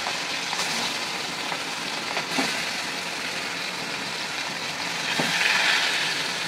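Marinated chicken leg pieces sizzling in hot refined oil in an aluminium kadai as they are laid in one by one. There are a few light knocks, and the sizzle grows louder about five seconds in as another piece goes into the oil.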